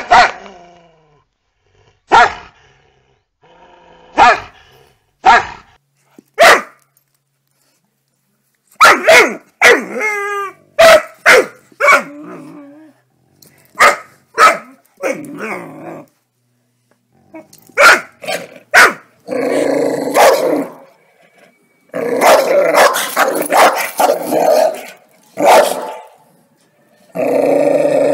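Angry dogs barking and growling: sharp single barks every second or two at first, a quicker run of barks in the middle, then long, drawn-out growls in the second half.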